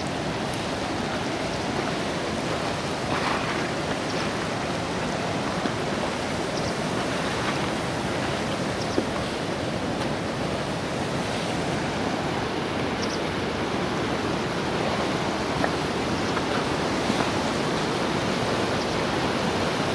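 Steady rushing of a mountain stream flowing over a gravel bed, with a few faint ticks.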